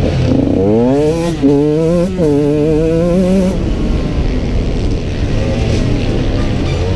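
2016 Husqvarna TE 125's two-stroke engine under hard acceleration, its pitch rising through the gears with short drops at each shift, then running lower and steadier on a lighter throttle from about halfway.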